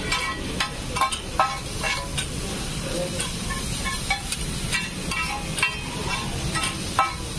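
Chow mein sizzling on a large flat griddle while two metal spatulas toss and chop it, repeatedly clinking and scraping against the pan.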